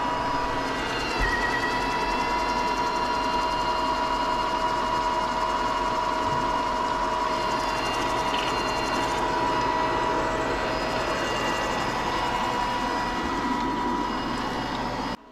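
Beko RoboSmart VRR80214VB robot vacuum running in mopping mode: a steady motor and fan noise with a steady whine over it, stopping suddenly near the end.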